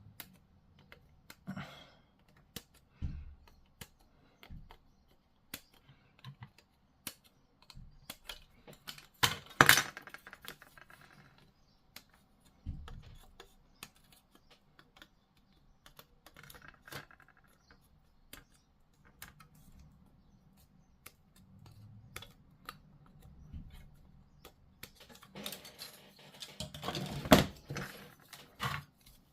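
Plastic model kit parts being handled and fitted together: scattered light clicks and taps, with louder bursts of clattering about ten seconds in and again near the end.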